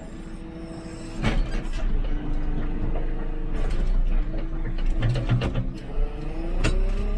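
JCB 3CX backhoe loader's diesel engine running under load as heard inside the cab, with a rising whine toward the end as it works harder. Several sharp knocks and clanks come from the machine's working linkage.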